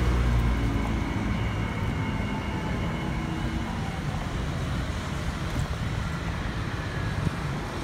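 Wind buffeting the microphone and street traffic noise while riding a bicycle, a steady low rumble. A vehicle engine's low hum fades out within the first second.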